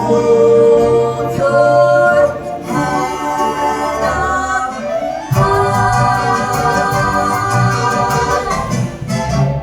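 Voices singing a show tune over a musical accompaniment, holding long notes. About halfway through, a full sustained chord comes in and is held for about three seconds.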